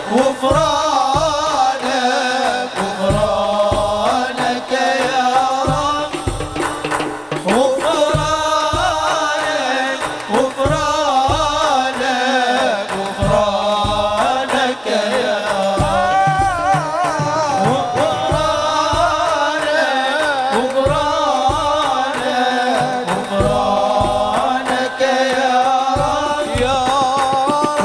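Live Islamic sholawat: men singing a melismatic Arabic devotional song into microphones, with drums beating a steady pattern of low strokes underneath.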